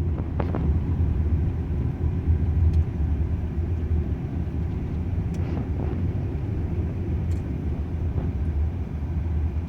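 Steady low rumble of a moving car's road noise heard from inside the cabin, with a few faint clicks.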